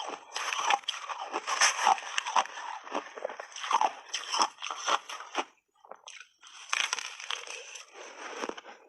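Ice being bitten and chewed: a rapid, irregular run of crunching and crackling, with a brief pause a little past halfway before the crunching resumes.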